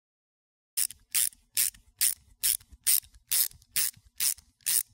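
A socket ratchet wrench being worked in ten short, even strokes, about two a second, starting almost a second in.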